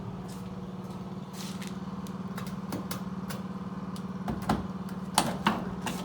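A steady low mechanical hum runs throughout, with a scattering of sharp clicks and knocks, the loudest ones coming in a cluster in the last two seconds, as the bumper's quick-release fasteners are worked loose.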